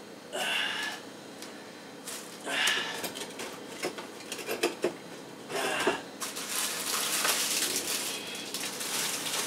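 Groceries being handled and put away: a few short clattering knocks, then a longer rustle from about two-thirds of the way in.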